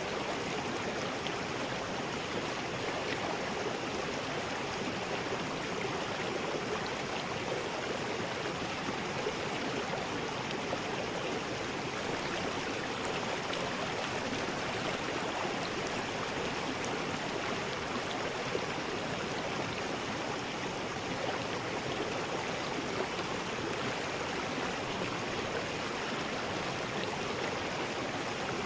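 River rapids: water rushing and splashing over rocks in a steady, unbroken rush.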